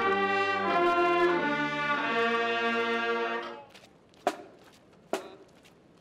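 Brass band playing slow, held chords that stop about three and a half seconds in, followed by two sharp clicks.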